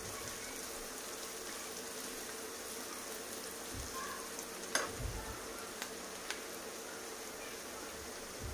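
Chopped onion, capsicum and other vegetables sizzling in oil in a nonstick frying pan while being stirred with a silicone spatula: a steady frying hiss, with a few light clicks about halfway through.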